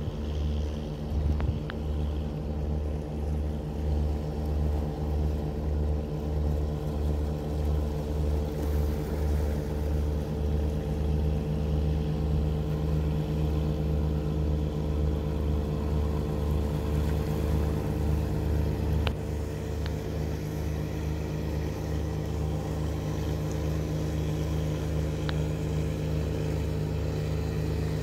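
Kolek fishing boat's engine running steadily, a low, evenly pulsing throb with a steady hum over it; the throb eases a little about two-thirds of the way through.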